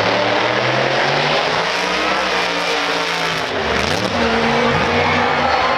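V8 race car engine running hard, its pitch holding and then shifting in steps, with a quick dip and rise about halfway through.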